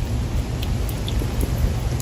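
Slime being pressed and worked by hand close to the microphone: a steady low rustle with a few faint small clicks.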